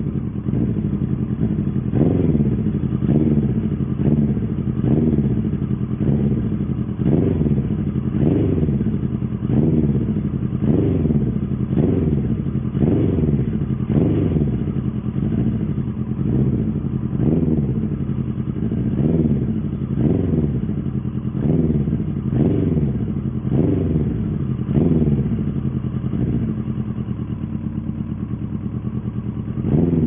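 Suzuki 1100 motorcycle engine revved at a standstill: quick throttle blips, each a rise and fall in revs, about once a second over a running idle. The blips stop for the last few seconds, leaving a steady idle, before one more rev at the end.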